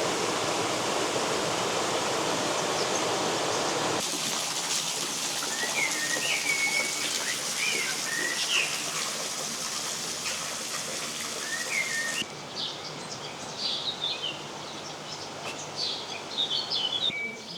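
Rushing water for about four seconds, then songbirds chirping in short rising and falling notes over a softer water rush. About twelve seconds in, the water noise drops away and several birds chirp more clearly at a higher pitch.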